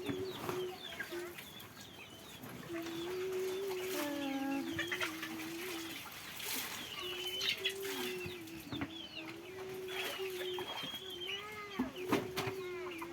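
Chickens clucking and small birds chirping, over a long, wavering low tone that stops and starts.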